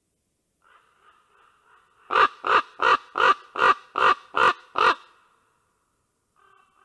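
Common ravens calling: a run of eight loud croaks, about three a second, with fainter calls from another raven just before and near the end.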